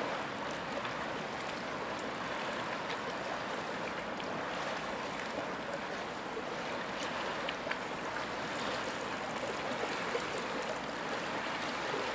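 Steady, even rushing noise of outdoor ambience, like flowing water or wind through crops, with a few faint ticks.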